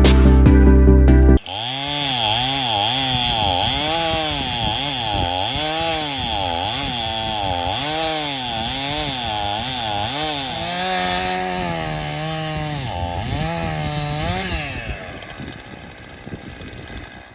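A Stihl MS 271 Farm Boss two-stroke chainsaw cutting through a 21-inch red oak round, its engine pitch dropping and rising again and again as the chain bogs in the cut; the saw is struggling, at the limit of what it can handle. Loud music cuts off about a second in before the saw comes up, and the saw grows quieter near the end.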